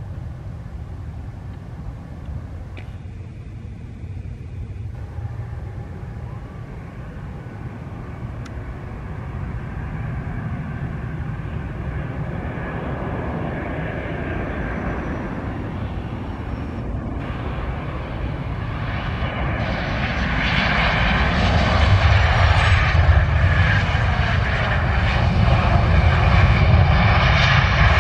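Boeing 737-800 airliner's CFM56 jet engines on landing approach, a steady jet roar with whining tones that grows louder as the aircraft comes in, loudest over the last third as it passes close by.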